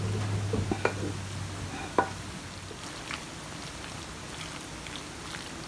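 Wooden spoon stirring and spreading sauced fusilli pasta in a glass baking dish. A few sharp knocks and clicks of the spoon against the dish ring out, the loudest about two seconds in.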